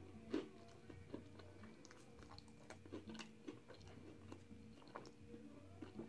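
Faint chewing and mouth sounds of a man eating a Jamaican patty: scattered soft clicks, with one sharper click about half a second in.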